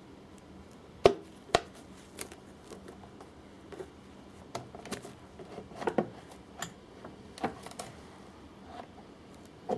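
Irregular clicks and knocks of hard objects being handled, about ten in all, the two sharpest about a second in.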